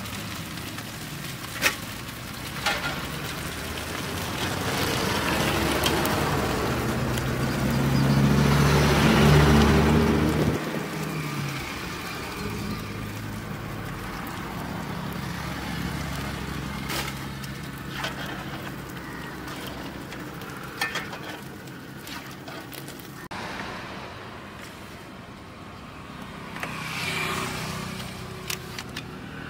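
Road traffic running close by, with one vehicle's engine hum swelling to its loudest about eight to ten seconds in, then fading. A few sharp clicks sound near the start.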